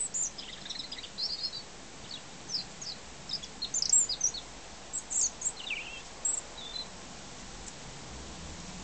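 European robin singing: short phrases of thin, high, twittering notes separated by brief pauses, with the song stopping about seven seconds in.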